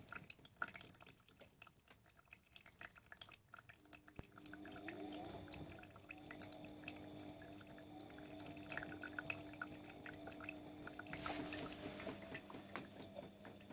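Water splashing and dripping inside a Whirlpool AWO 9165 washing machine, many small irregular splashes, with a faint low steady hum that drops out for a few seconds near the start and again near the end.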